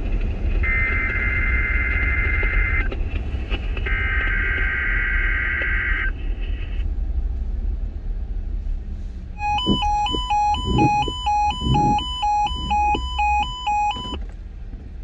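EAS/SAME header data bursts on NOAA Weather Radio: two buzzy two-second bursts of paired data tones, about a second apart, in the first six seconds. They mark the start of the Required Weekly Test. About nine seconds in, a two-pitch alert beep alternates about twice a second for some five seconds. A steady low rumble runs underneath.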